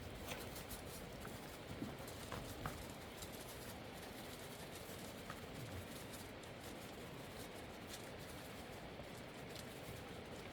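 Lambs crowding and feeding at a trough: faint scattered clicks and taps of hooves and feed over a steady low hiss, a few sharper ones in the first three seconds.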